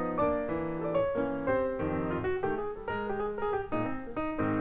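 Background music: a light piano or keyboard melody of separate notes.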